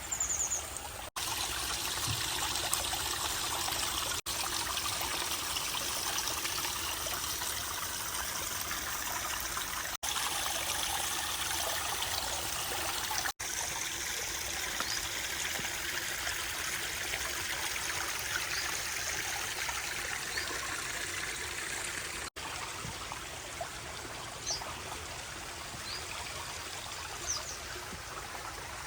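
Water running and trickling over rocks down a pondless waterfall stream, a steady splashing flow that breaks off for an instant five times. A few brief high chirps come near the end.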